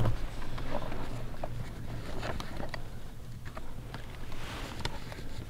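Low wind rumble on the microphone, with scattered faint clicks and rustles of clothing and gear, and a brief soft rush of noise about four and a half seconds in.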